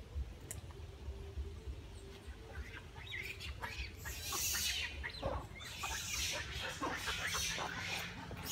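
Macaques squeaking and screeching in short high bursts, starting about three seconds in, over a low rumble.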